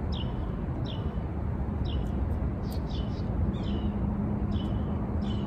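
A bird calling over and over, short chirps that each slide down in pitch, about two a second, over a steady low rumble.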